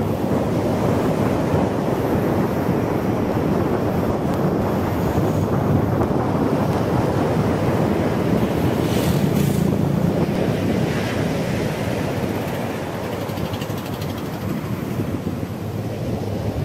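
Steady rush of wind buffeting the microphone on a moving motorcycle, with the bike's engine running underneath; it eases a little in the last few seconds as the motorcycle slows.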